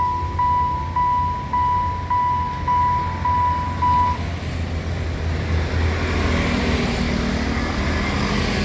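Railway level-crossing warning signal ringing a single electronic ding about twice a second over a low hum, then cutting off about four seconds in, leaving road traffic moving across the crossing.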